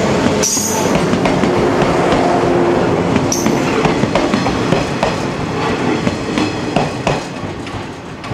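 A yellow electric multiple unit, Okayama depot set A14, rolls past close by with its wheels clacking over the rail joints. There are two brief high squeaks, about half a second and three seconds in, and the sound fades toward the end as the last car passes.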